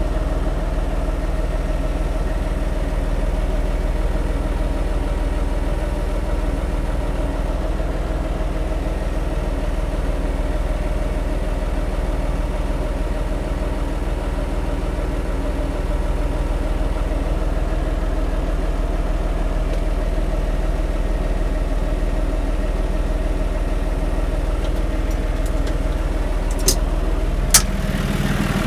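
John Deere tractor's diesel engine running steadily at low revs while its front loader inches a band saw forward on pallet forks. Two short sharp clicks near the end.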